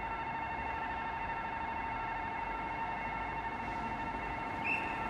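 Railroad crossing warning signal sounding: a steady electronic alarm tone that holds without a break, with a short higher chirp near the end.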